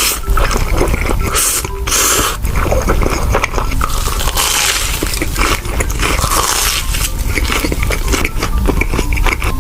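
Close-miked eating: crunching bites and chewing of a fried corn dog's batter crust, with several loud crunches among smaller wet clicks.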